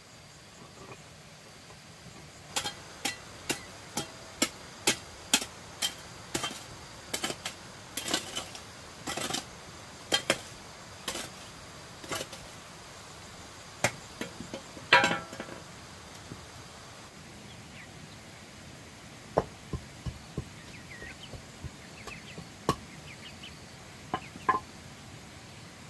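A hammer knocking on a flagstone to bed it into the earth floor, a steady series of sharp knocks about two a second for around ten seconds. Then a few scattered knocks.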